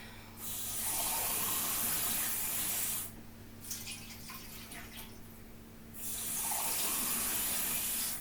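Kitchen tap turned on twice, water running into the sink for about two and a half seconds each time, starting and stopping sharply.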